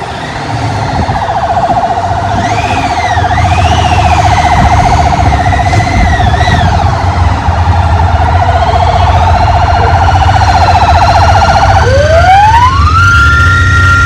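Several emergency-vehicle sirens sounding at once over a steady low rumble: a fast warbling tone, with others wailing up and down above it. Near the end one siren sweeps up and holds a steady high tone.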